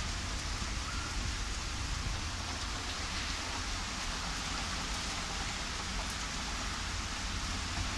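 Rain falling in a thunderstorm downpour, a steady even hiss with a low rumble underneath.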